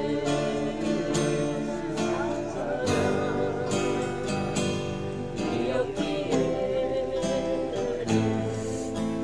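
Acoustic guitar strummed steadily while a voice sings long, wavering held notes of a Korean ballad.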